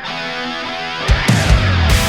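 Heavy metal song: an electric guitar plays alone, then the full band (drums, bass and guitar) comes in loudly about halfway through.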